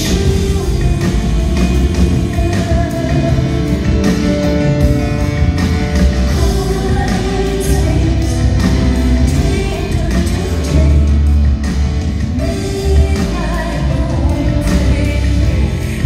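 Live rock performance: a woman singing over grand piano with a full drum kit keeping a steady beat and a heavy low bass, recorded from the audience in a concert hall.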